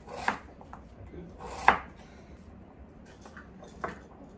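Kitchen knife chopping an onion on a wooden cutting board: a few separate sharp knocks of the blade on the board, the loudest about one and a half seconds in, with lighter knocks near the end as the diced onion is gathered into a glass bowl.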